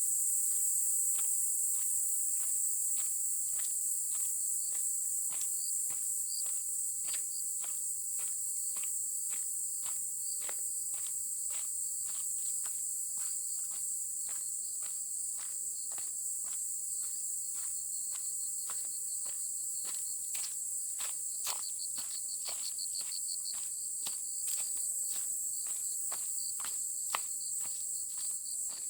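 Steady high-pitched insect chorus, with footsteps at an even walking pace of about two steps a second.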